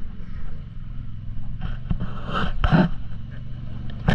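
Off-road vehicle engine running steadily, with a few short, louder noisy bursts about two seconds in and again at the end.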